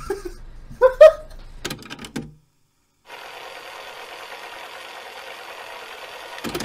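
A few short bursts of laughter. Then, after a brief silence, a steady crackling static hiss, a VHS tape-noise effect, runs for about three and a half seconds and cuts off suddenly.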